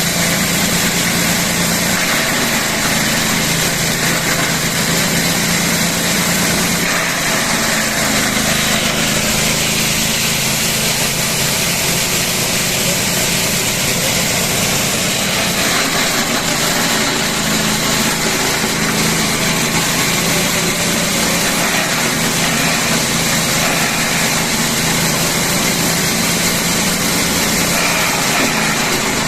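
Grass chopper machine running steadily, driven by a small engine.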